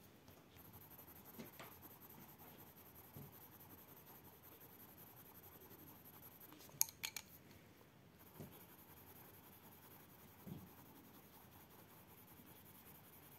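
Faint scratching of a colored pencil shading back and forth on paper, with a few light clicks about seven seconds in.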